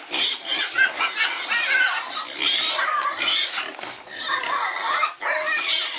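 Pigs squealing loudly and continuously at feeding time, several high shrill voices overlapping, with brief breaks about four and five seconds in.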